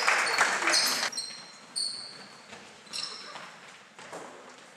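Basketball shoes squeaking on the gym floor during play: several short, high squeaks. The first second is louder, busy court noise with voices.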